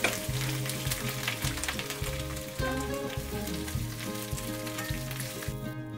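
Komatsuna greens sizzling and crackling as they stir-fry in hot sesame oil in a pan, stirred with a wooden spatula. The frying stops abruptly near the end, leaving soft background piano music.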